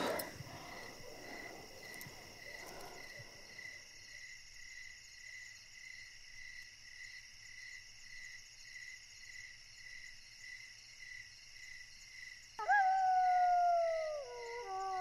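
A night chorus of insects, crickets by the sound, chirping in a steady pulsing drone. Near the end a canine howl breaks in suddenly, loud and sliding slowly down in pitch, and is then joined by several more howling voices.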